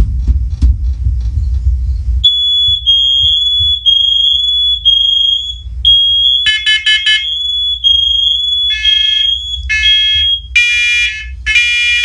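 Several interconnected smoke and carbon monoxide alarms sounding during a test started from a carbon-monoxide-only unit. After a low rumble, one alarm's high beeping starts about two seconds in. From about six seconds in, more alarms with buzzier tones join and overlap it.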